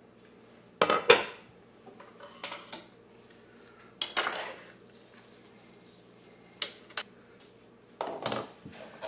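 Stainless steel tongs clanking against a slow cooker's crock as a pot roast is turned over in its cooking liquid. A few separate sharp clanks, about a second in and again around four seconds, then two light clicks and one more clatter near the end.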